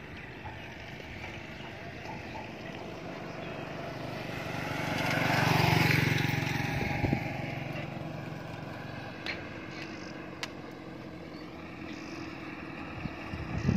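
A motor vehicle passes close by: its engine and road noise build to the loudest point about six seconds in, then fade, over a steady low engine hum.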